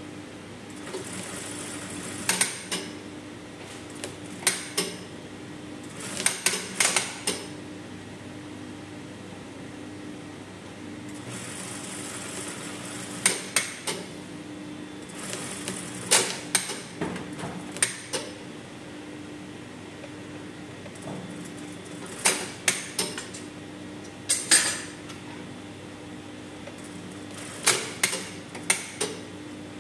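Brother industrial lockstitch sewing machine in use in short runs of stitching, with clusters of sharp metallic clacks every few seconds over a steady hum.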